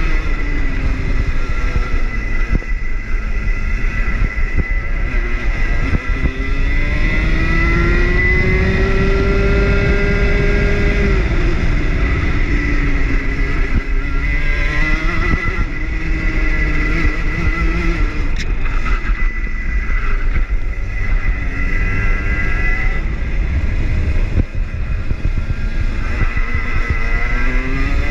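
Rotax kart engine running hard on track, its pitch repeatedly climbing for several seconds under acceleration and then dropping off.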